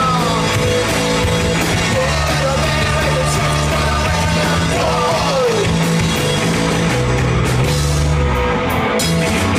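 Punk rock band playing live: distorted electric guitar, bass guitar and drum kit, with sung vocals. Two falling pitch slides cut through, one at the very start and one about five seconds in.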